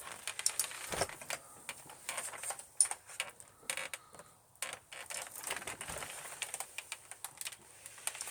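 Irregular light clicks and rustles of a vacuum cleaner being pushed over a faux fur rug while switched off.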